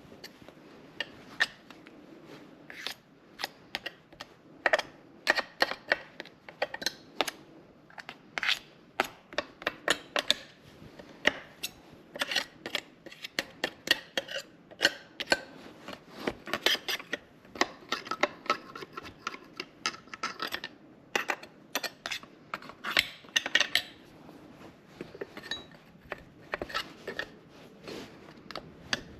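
Metal parts and hand tools clinking, tapping and scraping during hands-on chainsaw maintenance: many sharp irregular clicks, some with a brief metallic ring.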